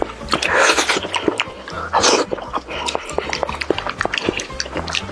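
Close-miked eating of fried chicken: crisp crackles and clicks of chewing the crunchy coating, with two louder breathy, wet chewing swells, about half a second in and again about two seconds in.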